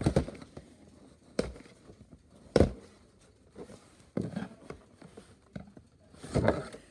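Toy packaging being handled while the figure's base is taken out: scattered knocks and rustles of cardboard and plastic, the sharpest knock about two and a half seconds in.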